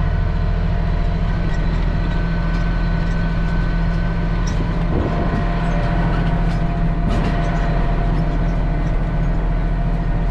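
Case IH tractor engine running steadily while pulling a planter across the field, a constant low drone with a few faint ticks.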